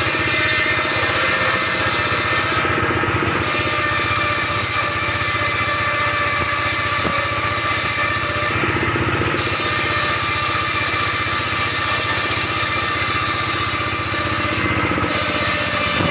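Circular saw machine running steadily while ripping wood into roof battens. The high cutting hiss drops out briefly three times, about six seconds apart, between cuts.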